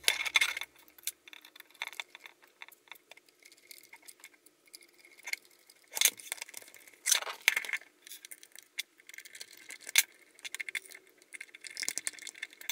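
Hard plastic parts of a Xiaomi cordless vacuum's floor-brush head and a small screwdriver clicking, knocking and clattering as the head is handled and put back together on a wooden desk. The knocks come irregularly, with louder ones about half a second in, around six to seven seconds, and at ten seconds.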